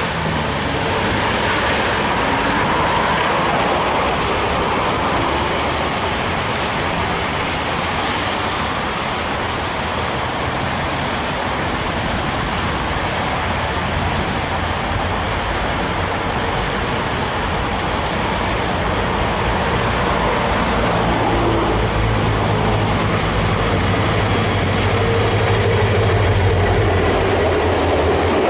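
Diesel locomotives hauling a freight train, a four-engine lash-up, heard over a steady rushing noise. The low engine drone grows louder over the last several seconds as the locomotives come close.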